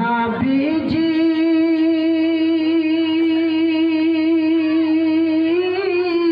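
A singer in a Bangla naat holding one long, steady sung note on the word "Nabiji" for about five seconds, gliding up into it at the start and rising slightly near the end.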